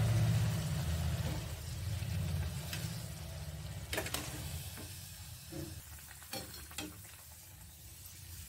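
A puffed puri deep-frying in hot oil in a kadhai, the oil sizzling and bubbling, the sizzle dying down steadily. A few light clicks as a slotted spatula touches the pan.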